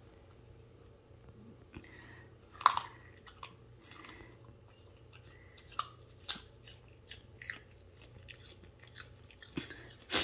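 Small dog crunching raw baby carrot pieces: irregular crisp bites and chewing, the loudest crunch about two and a half seconds in.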